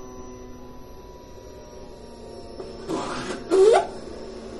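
In-tank electric fuel pump running steadily with a hum, jumped on to prime the fuel system. About three seconds in a louder, rushing burst with a rising tone cuts in briefly, then the steady hum carries on.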